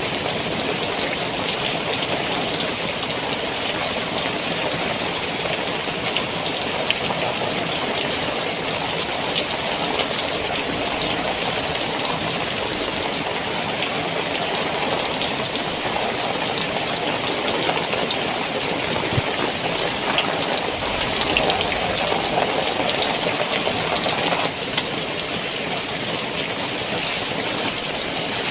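Heavy rain drumming steadily on the tent, heard from inside, with a few small knocks and rustles mixed in.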